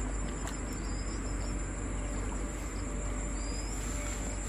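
Steady high-pitched drone of crickets or similar insects, with a few short rising bird chirps over it.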